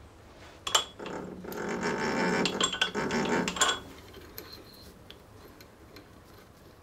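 Keyless drill chuck being turned by hand to close its jaws on a drill bit: a click, then about three seconds of rasping, ratcheting noise with clicks in it, ending in a sharp click.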